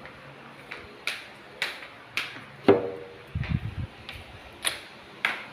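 A series of sharp clicks and knocks, roughly two a second, with one louder knock near the middle that rings briefly, followed by a short burst of low thuds.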